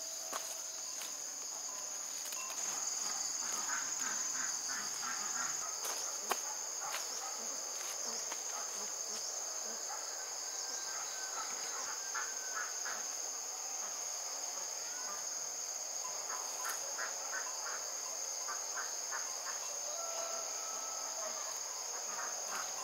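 A steady, high-pitched insect chorus of crickets, ringing on without a break. Short runs of faint, quick chirps come and go several times beneath it.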